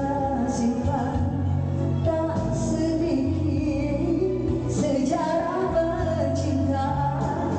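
A woman singing a Malay pop song into a microphone over musical accompaniment, amplified through a sound system.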